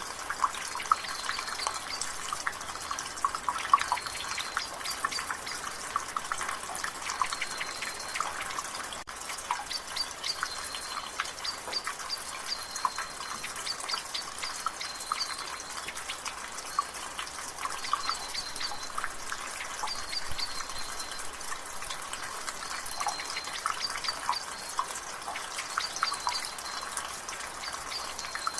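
Water dripping steadily from a gutter, a dense, irregular patter of drips over the soft hiss of light rain. A bird gives short high chirps every few seconds in the background.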